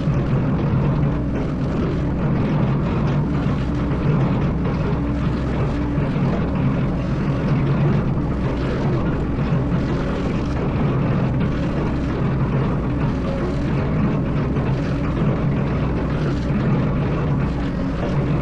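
Excavator's diesel engine running with a steady low drone.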